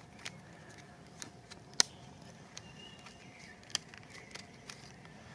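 Small plastic hot-sauce packet from a military ration being handled and torn open: scattered small crinkles and sharp clicks, the sharpest about two seconds in and another near four seconds.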